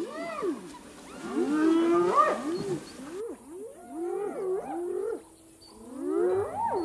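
Several animals giving overlapping wavering calls that rise and fall in pitch, a few each second, with a short lull about five seconds in.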